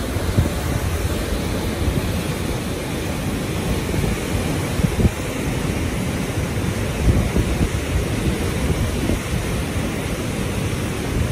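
Steady wind rumbling on the microphone over the rush of a ship's churning wake and the open sea, with stronger gusts about five and seven seconds in.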